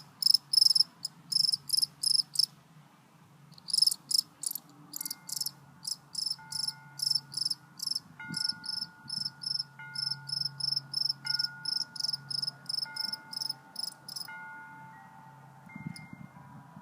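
A cricket chirping close by in a rapid, even series of high-pitched chirps, made by rubbing its wings together. The chirps pause briefly about two and a half seconds in, start again, and stop about two seconds before the end.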